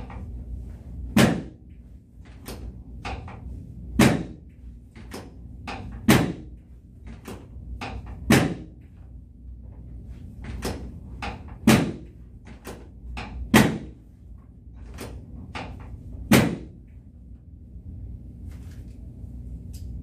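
Chiropractic drop table's pelvic drop piece snapping down under the chiropractor's thrusts during a pelvic adjustment: seven loud clacks two to three seconds apart, with lighter clicks between them.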